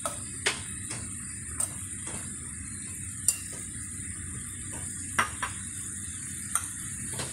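Metal tongs clicking against a non-stick frying pan and a ceramic bowl as chicken livers are lifted out, six or so separate clicks with the loudest about three seconds in. Under them, the sauce left in the pan sizzles steadily.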